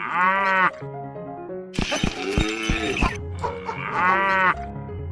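Background music with two bleats, each about two-thirds of a second long with a wavering pitch, about four seconds apart. Between them comes a harsher, noisier animal call.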